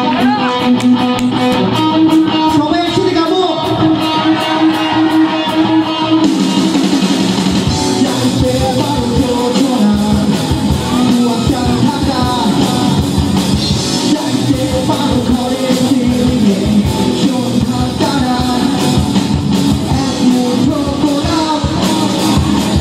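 A live rock band playing a Bengali rock song: electric guitars, bass and drum kit, with a male singer. The sound turns brighter and fuller about six seconds in.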